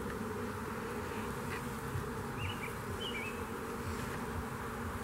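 Many honeybees buzzing around a hive entrance: a steady, dense hum of wingbeats.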